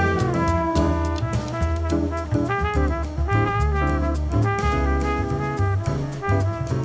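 Jazz ensemble recording: a horn melody on trumpet and saxophone over electric bass and drum kit.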